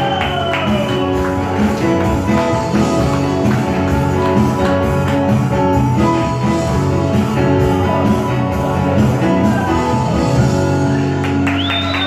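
Live acoustic rock song: a steel-string acoustic guitar strummed, with a man singing and hand percussion keeping a steady beat. Near the end a high whistle rises and holds.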